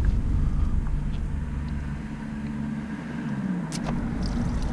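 Low rumble of a motor vehicle that fades in the middle and swells again near the end, with a couple of light clicks.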